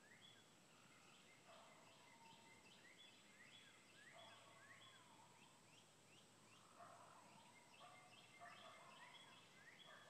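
Faint birdsong outdoors: several birds calling at once, one repeating short rising chirps about twice a second over other lower warbling calls.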